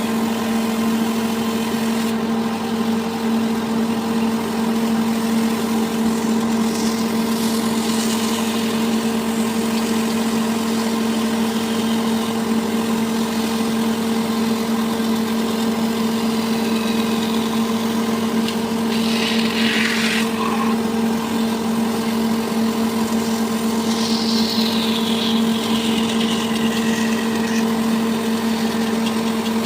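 A machine motor running steadily at one constant speed, a continuous even hum. There is a brief hiss about 19 seconds in and a short falling whine near 24 seconds.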